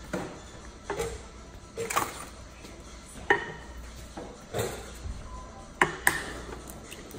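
Sharp knocks and clicks of objects being handled, about five at irregular intervals over a low steady hiss.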